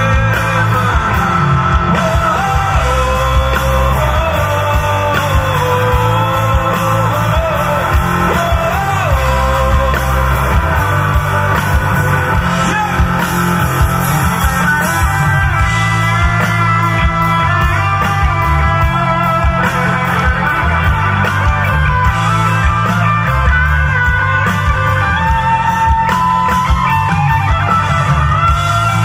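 A live rock band playing through a PA, with a vocalist singing over electric guitar, drums and keyboard, and a heavy bass.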